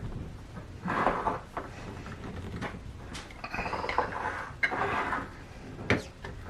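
Containers being opened by hand: a string of clicks and scraping, twisting sounds, with a sharp knock near the end.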